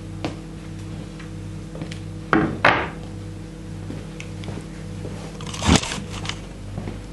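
Handling noise from a handheld camera being moved about: two knocks close together about two and a half seconds in and a heavier thump near six seconds, over a steady low electrical hum.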